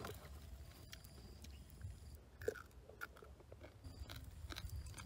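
Faint chewing of someone eating small fish, with scattered small clicks.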